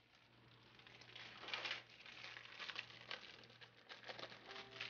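Faint crinkling of a plastic bag of sliced cheese as a slice is pulled out, in a few short rustles, over a low steady hum.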